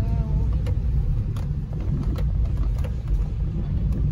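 Steady low road and engine noise of a moving car, heard from inside the cabin, with a few faint clicks.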